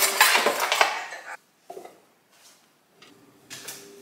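Metal kitchenware clattering as stainless measuring cups and utensils are handled at a cutlery drawer, stopping abruptly about a second and a half in. After a near-silent gap, faint handling sounds follow with a steady low hum.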